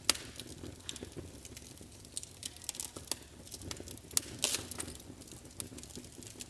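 Wood fire burning in a fireplace, crackling with irregular sharp pops and snaps over a soft low rumble of the flames; the loudest pops come just after the start and about four and a half seconds in.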